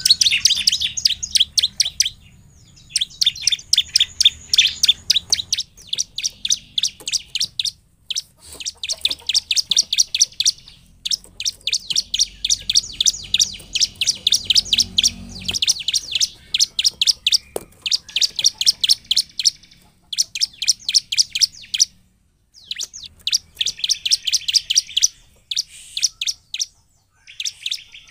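Bar-winged prinia (ciblek) singing vigorously: sharp, high chirps repeated rapidly, about five a second, in bouts of a few seconds separated by short pauses.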